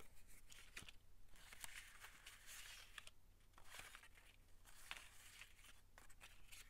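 Faint paper rustling and light taps as small paper ephemera pieces are handled and sorted through.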